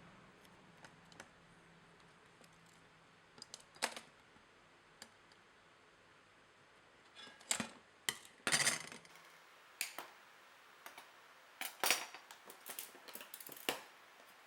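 Steel drill bits clicking and clinking against a magnetic holder and each other as they are handled. The clicks come singly at first, then in clusters in the second half.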